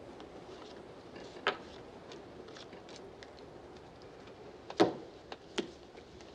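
Playing cards being dealt onto a poker table: a few sharp clicks and slaps, the loudest just under five seconds in, over a low steady background hiss.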